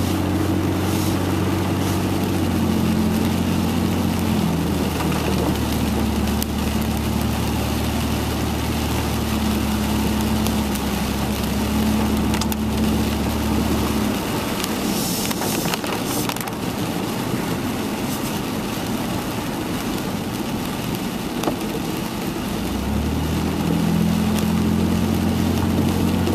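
Car driving on a rain-soaked road, heard from inside the cabin: a steady low engine hum over tyre hiss and rain on the windshield. The engine hum fades a little past halfway and comes back near the end.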